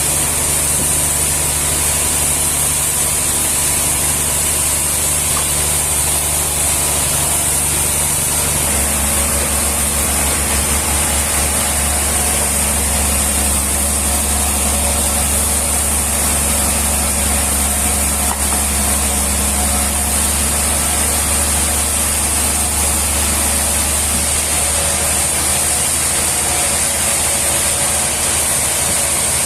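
An engine running steadily under a constant high hiss, its low note shifting about nine seconds in.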